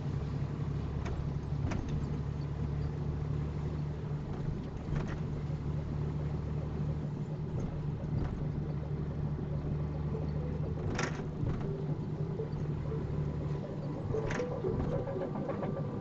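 Vehicle engine and road noise heard from inside the cab while driving slowly on a snowy highway: a steady low drone, with a few faint clicks.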